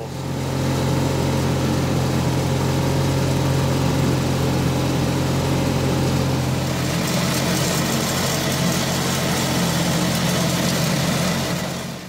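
Garden tractor engine running steadily while tilling soil with a rototiller attachment; it cuts off abruptly near the end.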